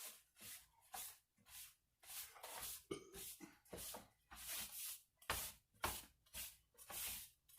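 A damp towel being rubbed over a rubber sluice mat, making a run of short rough hissing strokes about twice a second, some with a soft thud, as the surface is wiped clean so the tape will stick.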